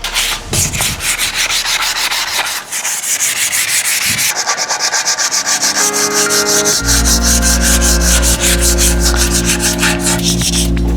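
Hand sanding block rubbed back and forth over painted metal in quick, even strokes, roughening the old paint for a new coat. A steady low hum joins about seven seconds in.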